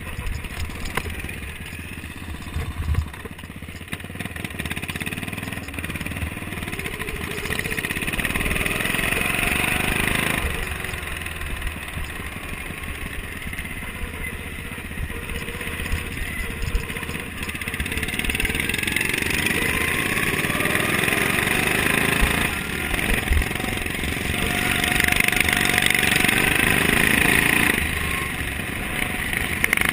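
Racing lawn tractor's Briggs & Stratton Vanguard engine running hard at racing speed, heard close up from the machine itself. The engine noise builds over several seconds and drops back briefly about ten seconds in, about twenty-two seconds in and near the end.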